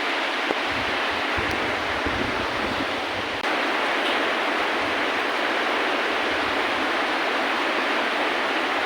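Steady rainfall, an even hiss, with a momentary dropout about three and a half seconds in.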